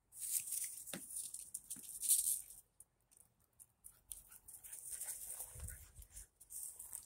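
Small dog scampering through dry grass: bursts of rustling and scuffling, with a sharp click about a second in and a few low thumps near six seconds.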